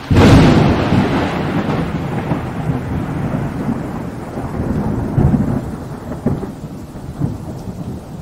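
Thunder sound effect: a sudden loud clap, then a long rolling rumble that slowly dies away, swelling again a few times.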